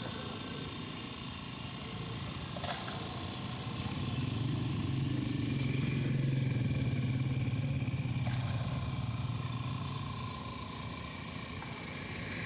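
Street traffic noise: a vehicle engine hum swells through the middle and fades again, over faint background chatter, with a couple of light clicks.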